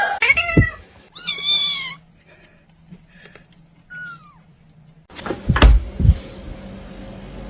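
Domestic cat meowing: a short falling cry at the start, a longer wavering meow about a second in, and a faint short mew near four seconds. A little after five seconds come two or three sharp, loud knocks.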